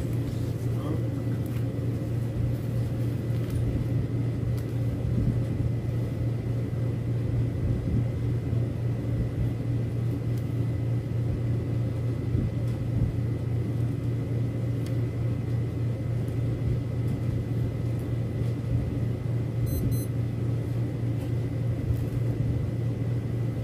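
A steady low hum runs unbroken through the room. Over it come faint rustles of plastic raffia strands being pulled apart by hand.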